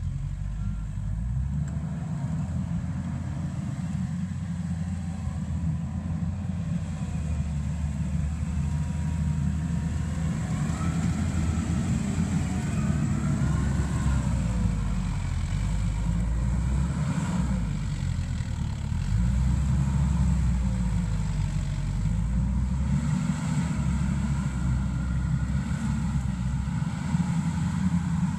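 A Mustang MTL325 compact track loader's diesel engine works under load as the machine pushes dirt, its note rising and falling. A fainter higher whine slides up and down over it.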